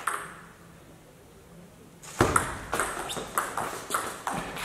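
Table tennis rally: the celluloid-type plastic ball clicking sharply off the bats and the table about four times a second, starting about two seconds in after a quiet pause. The tail of applause fades out at the very start.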